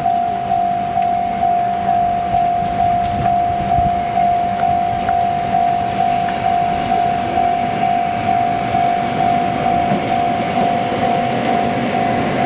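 Japanese level-crossing warning bell ringing steadily, a single clanging tone just under twice a second, at the crossing a Shinkansen test train uses. A low rumble swells under it near the end.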